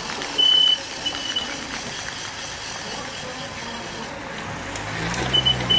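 Short bursts of a single steady high-pitched beeping tone, twice in the first second and again in quick repeated bursts near the end, over steady background noise. A car engine comes up about five seconds in.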